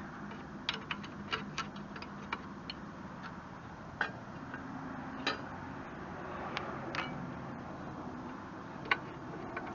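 Irregular light metallic clicks and taps of a hand wrench working on the nuts and bolts of a Kubota BH77 backhoe's joystick control linkage, several close together at first, then a few spaced ones.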